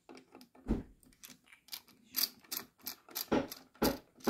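Small screwdriver turning the screws in the plastic base of an electric kettle: an uneven run of clicks and ticks, with a few louder knocks in the second half.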